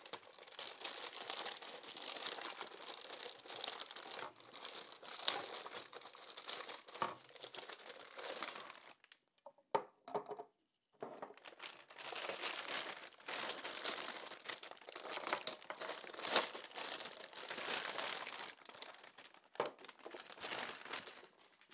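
Thin clear plastic packaging bag crinkling and tearing as it is slit with a hobby knife and pulled off by hand, with a brief lull about halfway through.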